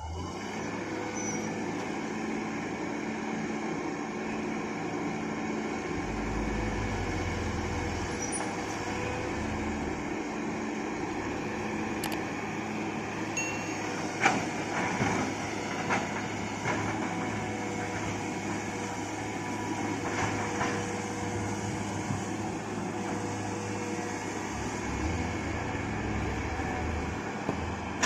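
Hitachi hydraulic excavator working, its engine running steadily with a low rumble, with a few sharp clanks about halfway through and again a little later.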